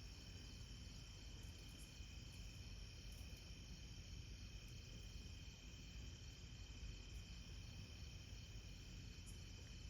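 Faint, steady chorus of crickets and other night insects, several high tones held without a break.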